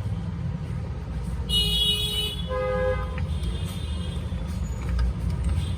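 Road traffic running steadily with a low rumble, and vehicle horns honking: a high-pitched toot about a second and a half in, followed straight after by a lower one, then a fainter high toot.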